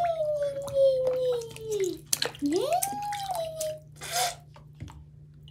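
Water sloshing and splashing in a sink as a toy dinosaur is swished through it. Over this run two long sliding tones: one falling slowly over about two seconds, then one that rises and falls.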